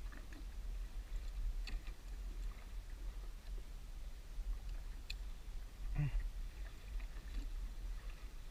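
Low steady rumble of wind on the microphone over open water, with a few faint clicks of metal pliers and a fishing lure as hooks are worked out of a fish's mouth, and a short louder noise about six seconds in.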